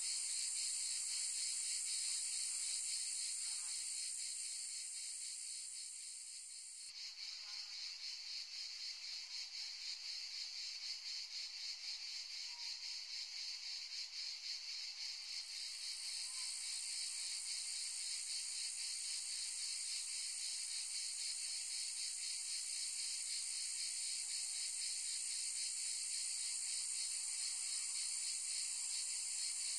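A dense, steady chorus of shrilling insects with a fast, fine pulsing. Its highest part drops away about seven seconds in and returns about eight seconds later.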